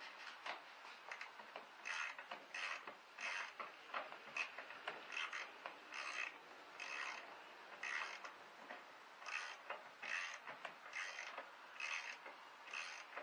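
Ratchet wrench being worked back and forth on a bolt in a car's engine bay, its pawl clicking in short spells about once a second.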